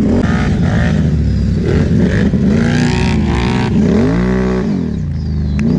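ATV engine running under throttle, its pitch rising and falling as the rider speeds up and eases off, with one long swell and drop a little past the middle.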